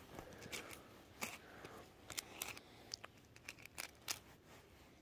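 Faint, irregular small clicks and ticks, about a dozen sharp taps scattered over a low hiss.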